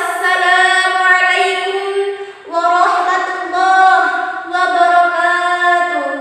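A young woman's voice singing unaccompanied, in three long phrases of held notes.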